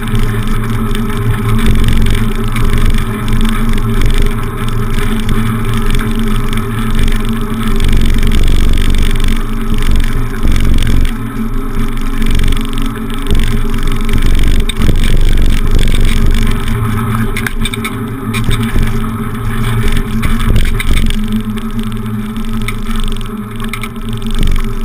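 Wind buffeting a handlebar-mounted camera's microphone while riding a bicycle: a loud rumbling noise that swells and dips as the bike rolls along.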